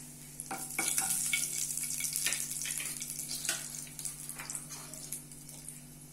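Dried red chillies and popped mustard seeds sizzling in hot oil in a frying pan, the tempering stage of the dish, with scattered crackling pops. The sizzle grows louder about a second in and eases off toward the end.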